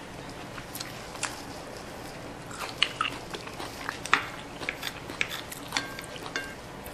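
Close-miked chewing with scattered wet mouth clicks and smacks, mixed with light taps of wooden chopsticks against a ceramic plate.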